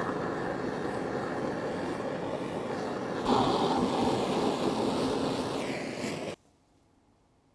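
Handheld kitchen blowtorch flame hissing steadily as it browns meringue peaks. The flame gets louder and brighter about three seconds in, then cuts off sharply near the end.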